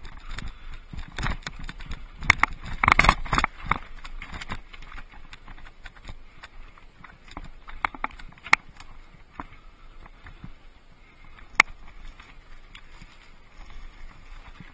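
Mountain bike rattling and clattering over a rocky desert trail: a dense run of loud knocks and clacks about two to four seconds in, then scattered single sharp clacks.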